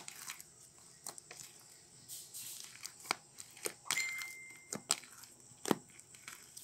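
Thick, sticky slime being squeezed and kneaded by hand in a plastic cup, giving scattered wet clicks and small pops, with one louder snap near the end.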